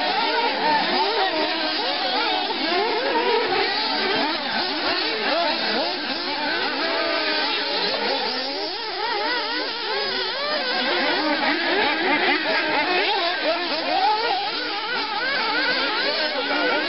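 A pack of 1:8 off-road nitro RC buggies, their small two-stroke glow engines revving high. The pitch of several engines at once swoops up and down without pause as the cars accelerate and lift off around the track.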